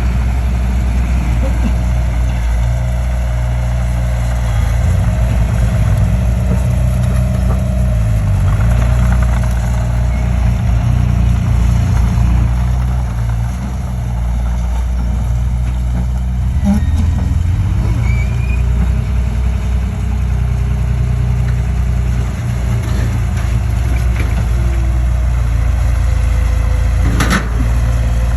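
Heavy engine of earthmoving machinery running steadily at a low pitch, with a single sharp knock near the end.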